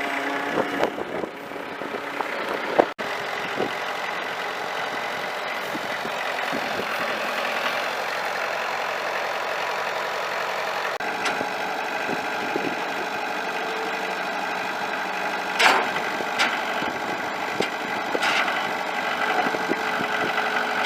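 Farm tractor engine running steadily, with a few sharp clunks of metal, about three seconds in and twice near the end.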